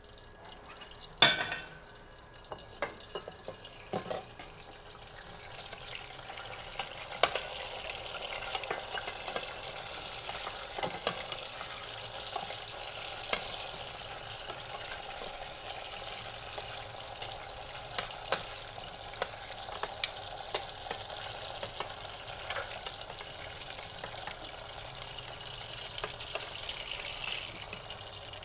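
Food frying in hot oil in a pan: a sharp clank about a second in and a few lighter knocks. Then a steady sizzle builds and holds, with frequent pops of spattering oil.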